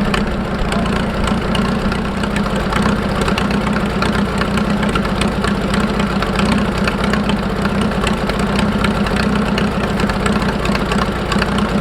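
Tractor engine running steadily, with a low hum and a fast, even clatter.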